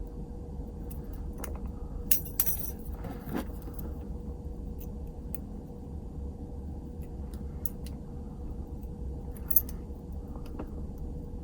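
Small metal padlock parts and tools clinking and tapping as a Yale padlock is taken apart: a quick cluster of clinks about two to three and a half seconds in, and one sharp clink near the end.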